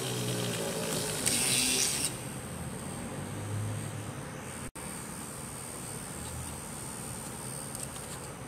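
Small 12 V DC motor of a homemade mini drill press running with a steady high whine while its bit drills through a wooden popsicle stick. A loud rasp of the bit cutting the wood starts about a second in and lasts under a second.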